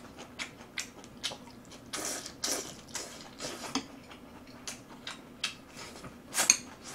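Eating sounds: chewing and small, irregular clicks of metal chopsticks against side-dish bowls, with a couple of louder mouth sounds about two seconds in and near the end.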